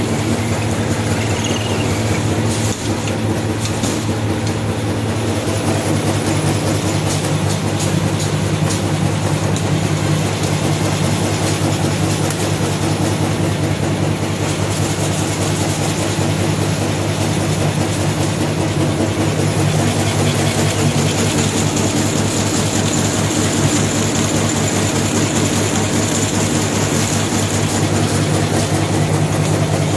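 Azone AZ-SP300 paper-straw packing machine running at speed: a steady motor hum with a fast, even clatter from its wrapping and sealing mechanism.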